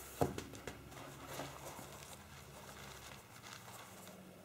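Faint handling noises as rope is worked on a wreath by hand: a sharp tap about a quarter second in, then scattered light taps and rustles over a low steady hum.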